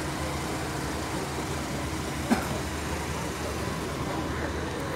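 Perodua Kancil's small engine idling steadily at close range, with one sharp knock about two seconds in.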